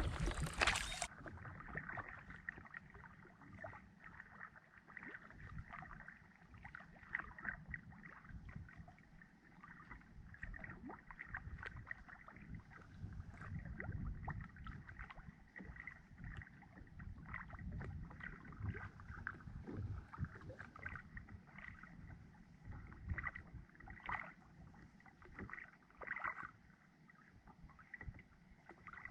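Kayak paddle working in calm water: soft, irregular splashes and drips as the blades dip and lift, over a low rumble. A louder rush at the start cuts off about a second in.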